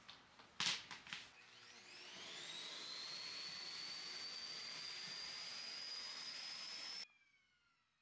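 Canister vacuum cleaner starting up after a couple of knocks: its motor whine rises in pitch over a second or so and settles into a steady high whine with suction hiss. About seven seconds in it is switched off, and the whine falls away as the motor spins down.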